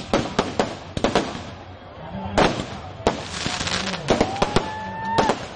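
Firecrackers packed into a burning Ravana effigy going off in rapid, irregular bangs over continuous crackling. Past the middle, a single whistling tone rises slightly, holds for about a second, and cuts off.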